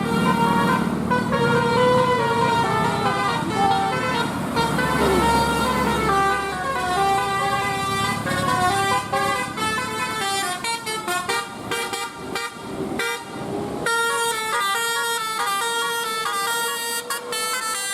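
Bus telolet horn, a multi-trumpet air horn playing a tune of stepping notes over and over. Near the end the tune switches abruptly to a quicker, choppier pattern of notes.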